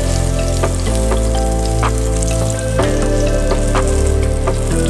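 Floured chicken wings deep-frying in a pot of hot oil, a steady sizzle with scattered pops and crackles, under background music.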